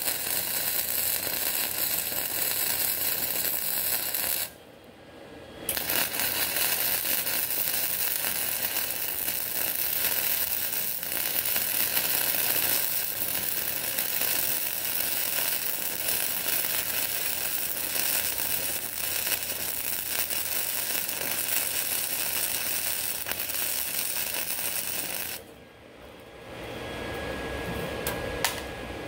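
Flux-core wire-feed welding arc crackling steadily while a crack in a cast iron engine block is welded shut. There is a short run, a break of about a second, then one long run of about twenty seconds that cuts off a few seconds before the end.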